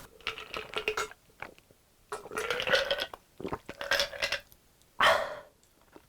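A person burping several times in a row after a big meal, with small wet mouth clicks in between.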